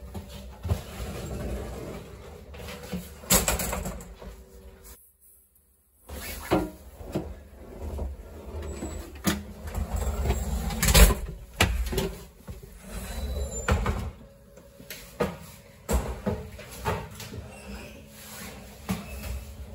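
A passenger coach's interior door being pushed open and closed, with repeated clicks and knocks from the latch, handle and door frame. The loudest knock comes about eleven seconds in.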